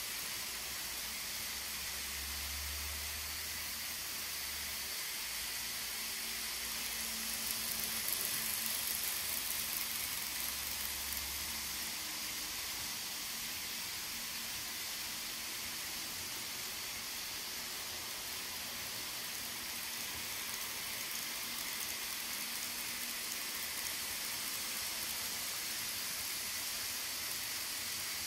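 N scale model trains running on the layout track: a steady, high hissing whir of small locomotive motors and wheels on rail, a little louder about eight to ten seconds in.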